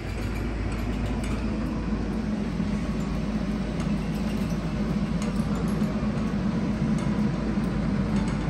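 Diesel engine of a mini excavator running steadily as it swings and works its arm, with a few faint light metallic clinks.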